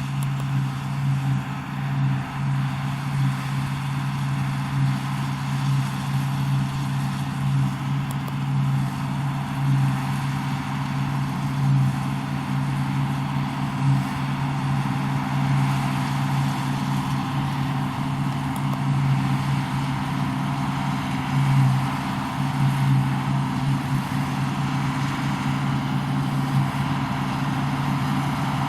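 Deutz-Fahr combine harvester running steadily at working speed, a constant droning hum with no change in pitch.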